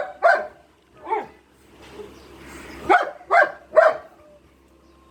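Dog barking: about five short barks, two in the first second and a half, then three in quick succession about three seconds in.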